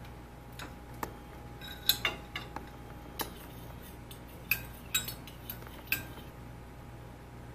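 A utensil clinking against a glass measuring cup while the melting wax and oils in a stovetop double boiler are stirred: about a dozen sharp, irregular taps, the loudest about two seconds in, with the last ones about six seconds in.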